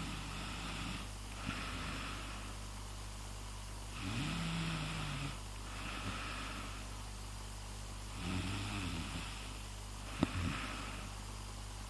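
Snoring sound effect: three slow snore cycles about four seconds apart, each a rough pitched snore followed by a softer breathy hiss. A steady electrical hum runs underneath, and a sharp click comes about ten seconds in.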